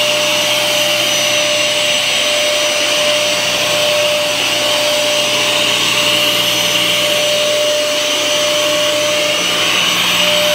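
Rented upright carpet cleaner's suction motor running steadily with a constant whine, pulling floodwater out of soaked carpet.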